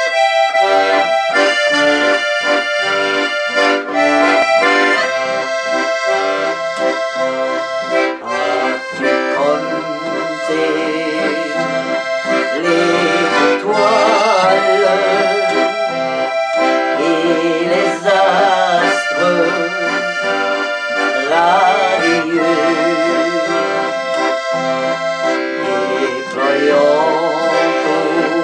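Ballone Burini Cantus 34a piano accordion playing a traditional folk melody in C major, with acoustic guitar accompaniment.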